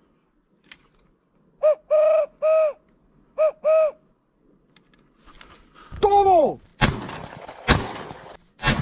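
Wood-pigeon coos blown on a hand call: five notes, three then two after a short pause. A few seconds later a short sound falling in pitch, then three shotgun shots about a second apart.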